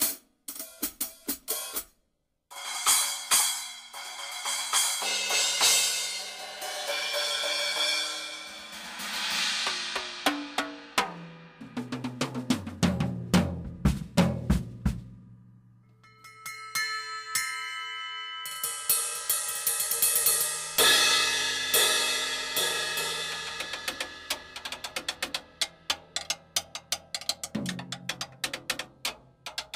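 Drum kit played freely as a microphone test, with no steady beat. It opens with quick stick hits, then cymbal rolls swell and fade, and a low drum roll comes in the middle. After a short pause there are a few ringing taps, then a cymbal swell and fast strokes across drums and cymbals.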